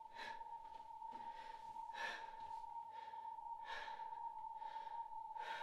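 A young woman breathing heavily, with four loud breaths nearly two seconds apart, over a steady high ringing tone.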